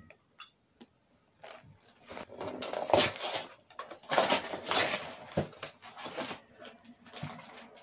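Cardboard fruit-snack box being pulled open at its top flap, a run of irregular tearing, scraping and rustling bursts starting about a second and a half in, loudest around the middle.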